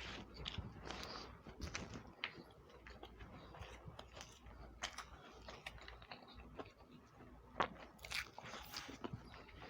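A person chewing and eating egg curry and upma close to the microphone: irregular wet mouth clicks, with a sharper click about three-quarters of the way through.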